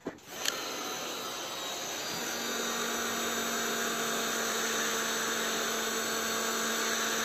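Hot-air heat gun switched on and running steadily, its fan blowing, with a faint steady hum clearer from about two seconds in. It is heating the ABS plastic and filler for a weld.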